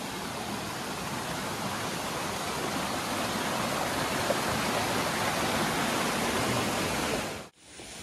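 Water rushing loudly and steadily over rocks in a stream, a dense even rush that cuts off suddenly near the end and gives way to a much quieter background.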